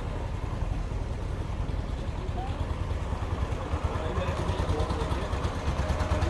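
Canal boat's engine running steadily, a low drone with a rapid flutter in loudness.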